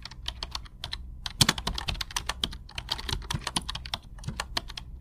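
Keyboard typing sound effect: rapid, irregular key clicks, several a second with one louder click about a second and a half in, over a low steady hum. It accompanies on-screen text being typed out letter by letter.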